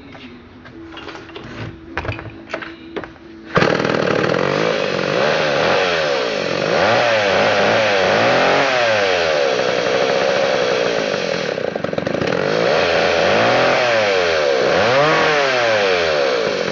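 1961 McCulloch 1-72 chainsaw's 87 cc two-stroke engine, with a few clatters before it starts about three and a half seconds in. It then runs loud and unloaded, with no cutting, revved up and down several times.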